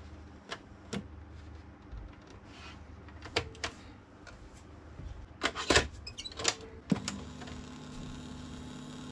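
Plastic clicks and clunks from a CMiK radio-cassette player's piano-key buttons, switches and cassette door as it is opened and shut, with a quick run of clicks a little past halfway. About seven seconds in, a low steady hum starts and holds.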